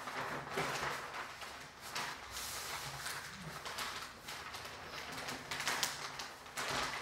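Large sheets of paper rustling and crinkling as they are lifted, folded and pressed flat by hand into a giant paper airplane.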